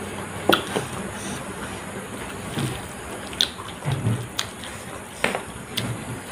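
Close-up mouth sounds of eating rice with ghugni by hand: about ten irregular wet smacks and chewing clicks, along with fingers squishing through the rice, over a steady hiss.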